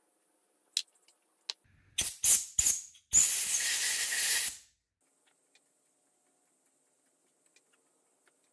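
Two light clicks, then three quick hissing spurts and a steady hiss of about a second and a half from a pressurized spray nozzle held at a screw hole in a floor jack's pump housing.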